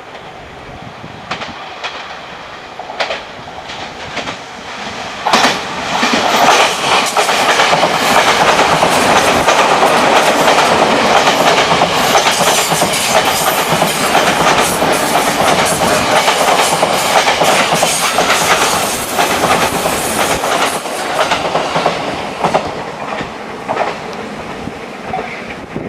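A train passing at speed, its wheels clacking over the rail joints. It approaches with separate clicks, runs loud for about fifteen seconds from about five seconds in, and then fades away.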